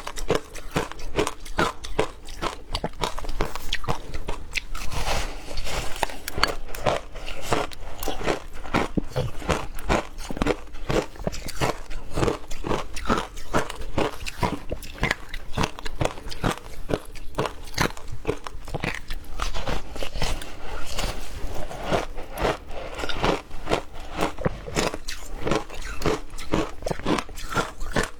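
White ice being bitten and chewed: a continuous run of sharp, crunching cracks, several a second.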